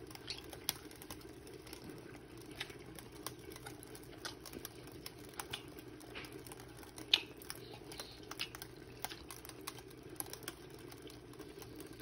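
Faint scattered clicks and crinkles from aluminium foil and a plastic squeeze bottle being handled as barbecue sauce is squeezed onto a smoked turkey leg, over a steady low hum. One sharper click comes about seven seconds in.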